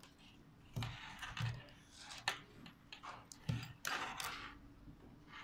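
Gloved hands handling the plastic head strap and frame of a DPVR VR headset: a series of short rustles, clicks and scrapes.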